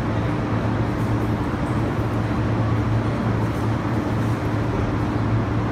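Steady low machine hum with a constant low tone, unchanging throughout.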